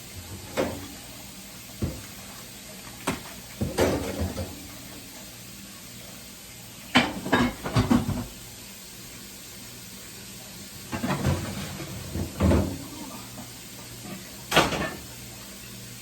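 Intermittent knocks, clunks and clatter of household items being handled and moved about, with a few sharper knocks in small clusters.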